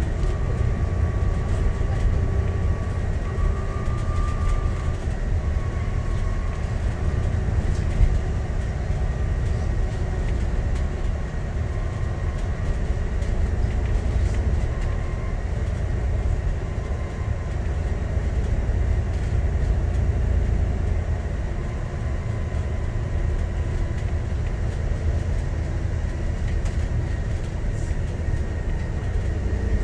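Alexander Dennis Enviro 400 MMC double-decker bus on the move, heard from inside the passenger saloon: a steady low engine and road rumble. A thin whine sits over it for the first few seconds, and a single knock comes about eight seconds in.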